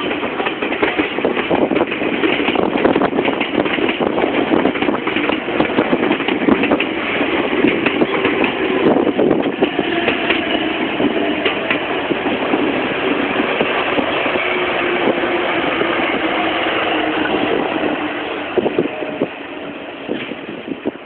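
Meitetsu electric train running through the level crossing, a dense clatter of wheels on rail with a steady rumble, dying away over the last few seconds.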